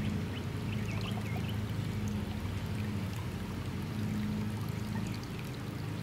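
Heated water from a solar pool heater's outlet pouring steadily into the pool, with a steady low hum underneath.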